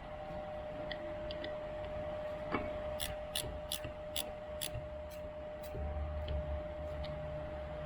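Small sharp metal clicks as the set screws of a clamp-on brake pedal extension are cinched down by hand: a few faint ticks, then a run of about six clicks, roughly two a second, in the middle. A steady faint hum sits underneath.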